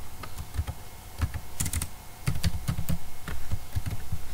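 Typing on a computer keyboard: an uneven run of quick keystrokes in short clusters with brief pauses between them.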